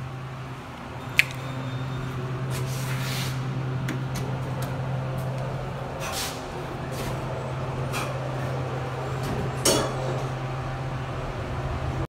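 Elevator car running with a steady low hum, broken by a sharp click about a second in and a few brief rattles and knocks, the strongest near the end.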